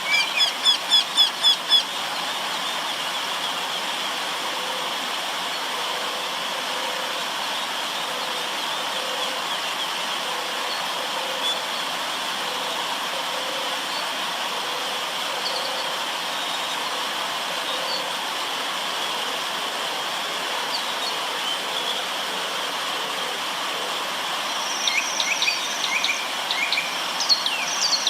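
River water running steadily, with birds singing over it: a quick run of repeated high notes in the first two seconds, a few scattered faint notes, and a burst of calls near the end.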